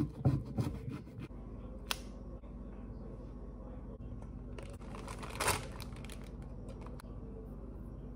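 Kitchen handling sounds as an avocado is cut and twisted apart on a wooden chopping board: a few dull knocks in the first second, a sharp click about two seconds in and a short rustle around five and a half seconds, over a steady low hum.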